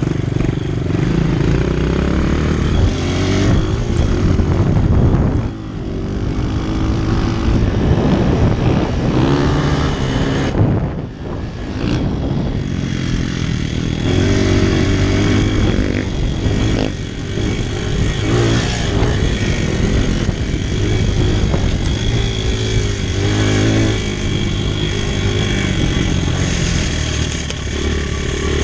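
Honda four-stroke single-cylinder dirt bike engine under way, revving up and down through the gears, heard up close from the rider's helmet. The throttle is chopped briefly about five seconds in and again, more deeply, about eleven seconds in.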